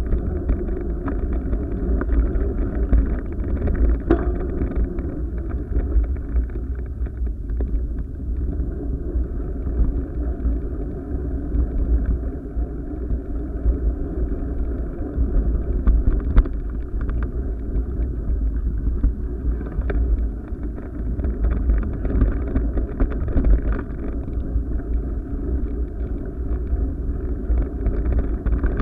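Steady, muffled rumble of wind buffeting and vibration on a moving action camera, with scattered sharp clicks and knocks from the camera's mount jolting over the dirt path.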